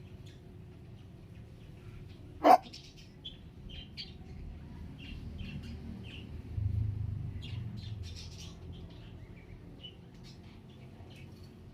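Pet parrots chirping and chattering in short, high calls throughout, with one loud sharp sound about two and a half seconds in and a low rumble for a second or so past the middle.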